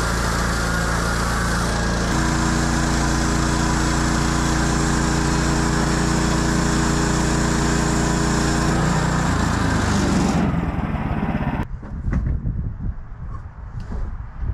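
Band sawmill's gas engine running steadily with the blade cutting through a Douglas fir log; the pitch shifts about 2 seconds in, and the sound drops away abruptly near the end, leaving a few scattered knocks.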